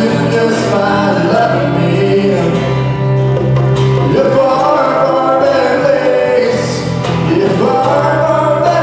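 Live worship song: a male voice singing into a microphone over guitar and hand-played bongos.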